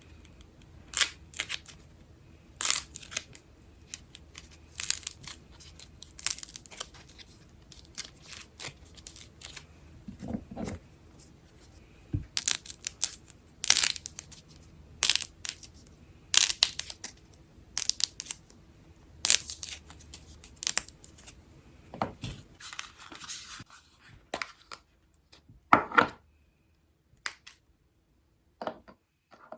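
Slime being stretched and squeezed by hand, giving irregular crisp crackling and tearing sounds a second or two apart, with a short pause near the end.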